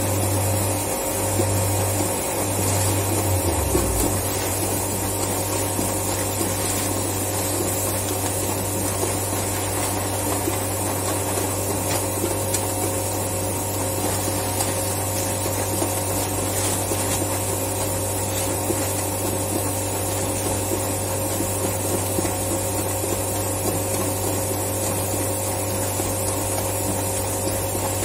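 Plastics-plant machinery running: a steady low hum and several steady tones over a constant hiss. The low hum wavers for the first few seconds, then holds steady.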